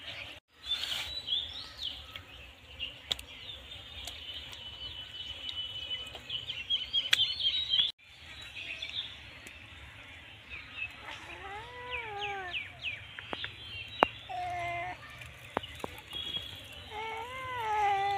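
Birds chirping, with rapid high chirps in the first half and several longer rising-and-falling calls in the second half, and a few sharp clicks scattered through.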